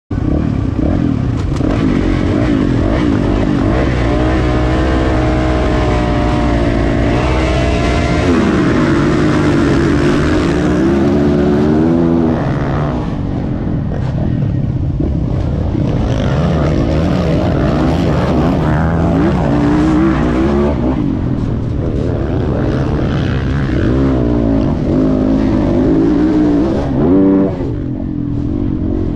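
Motocross bike engines racing flat out, heard from on board one bike in the pack: its engine note rises and falls again and again with the throttle and gear changes, over the steady drone of the other bikes.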